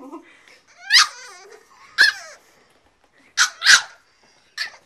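French Bulldog–Boston Terrier mix puppy barking: five short, high barks about a second apart, two of them in quick succession near the middle.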